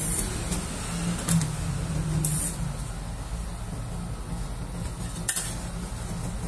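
Steel spatula scraping across a stainless cold plate as it rolls up a thin sheet of frozen ice cream, in several short scrapes, over a steady low machine hum.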